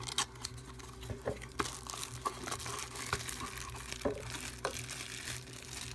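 A small cardboard blind box being opened and handled: scattered rustles, crinkles and light taps of cardboard and packaging, one after another.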